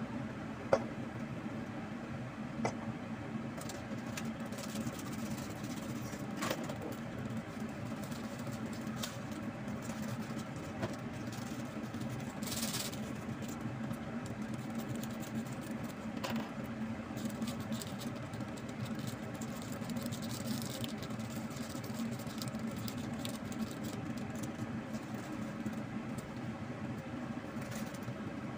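Steady low machine hum in a kitchen, with a few sharp clicks and taps scattered through it; the loudest click comes about a second in.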